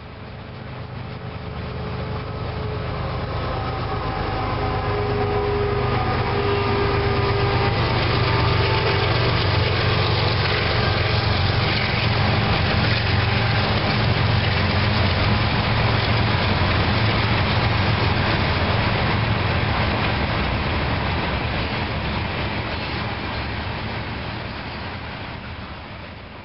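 Freight train cars rolling past at speed: a steady rumble and clatter of steel wheels on the rails, with a few faint squealing tones in the first several seconds. It swells up over the first few seconds and fades near the end.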